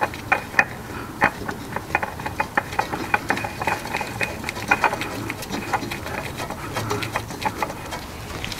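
Black nitrile-gloved hand turning a new Motorcraft FL910S spin-on oil filter onto its mount by hand, giving a rapid, irregular patter of small clicks and rubbing.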